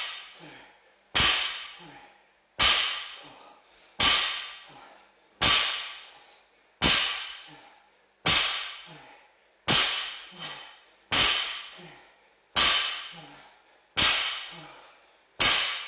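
A 60 kg barbell loaded with rubber bumper plates striking the floor mat at the bottom of each deadlift rep. It gives a sharp impact about every one and a half seconds, eleven times, each ringing off briefly.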